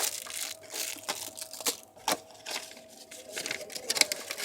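Plastic parcel packaging crinkling and rustling in quick, irregular crackles as a package is handled and unwrapped.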